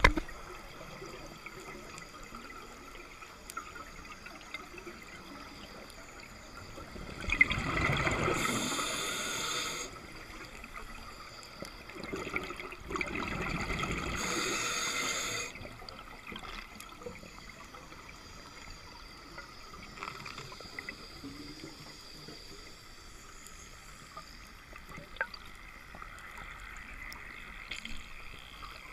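Muffled underwater noise heard through a camera housing, with two bursts of scuba exhale bubbles rushing past, each lasting two or three seconds, about a quarter of the way in and again around the middle.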